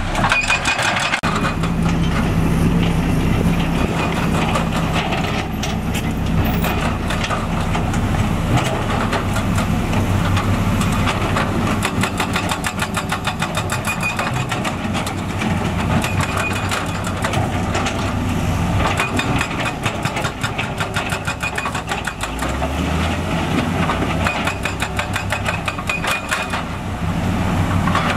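Heavy diesel engines of construction machinery running steadily with a rapid clatter, one engine revving up briefly about two-thirds of the way through.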